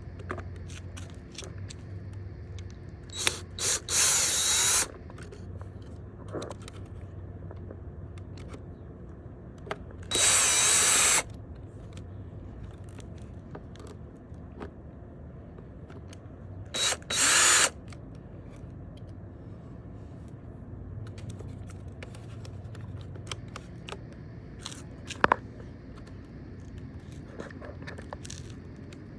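Cordless drill/driver with a T25 Torx bit running in three short bursts, backing out the steering wheel's screws. Light clicks of handling come between the bursts, with one sharp click about 25 seconds in.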